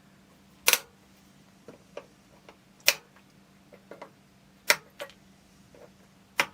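Sharp clicks and knocks of tools and parts being handled while working on an electronics unit: four louder ones roughly two seconds apart, with lighter taps between them, over a faint steady hum.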